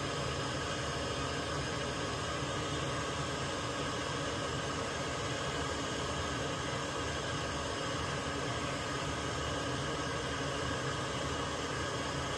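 Steady fan whirr with a constant hum, unchanging throughout.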